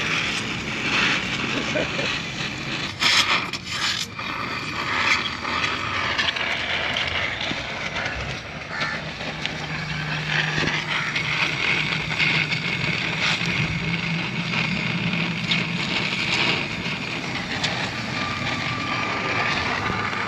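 Welding on a motorcycle's exhaust mounting: a steady hissing noise, with a few sharp taps about three to four seconds in.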